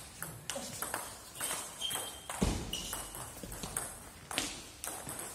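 Table tennis rally: the celluloid-type ball clicking sharply off rubber paddles and the table top in quick, irregular succession, a few hits a second. A heavier thump comes about two and a half seconds in.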